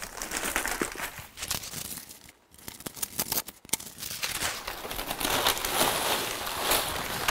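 Brown kraft wrapping paper being torn and crumpled as it is pulled away from a cardboard box, a dense crackling rustle. It stops briefly a little over two seconds in, then comes back louder in the second half.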